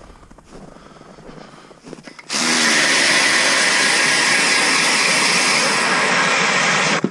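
Ryobi 18-volt cordless 1/2-inch hammer drill turning an ice auger bit down through lake ice. It starts abruptly after a couple of quiet seconds, runs loud and steady for about five seconds, then stops near the end.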